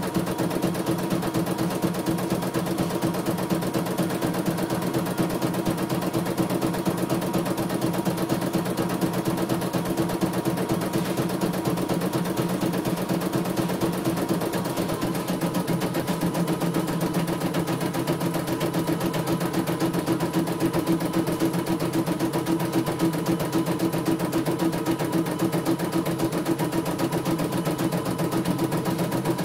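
CNY E900 computerized embroidery machine running a test embroidery: the needle stitches in a rapid, steady clatter while the embroidery unit moves the hoop beneath it. The machine's tone shifts slightly about halfway through.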